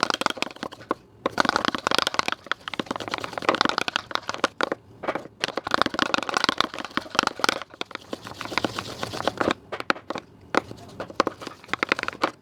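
Homemade soap slime being squished and worked, giving a rapid, irregular run of sticky crackling and clicking pops in uneven bursts.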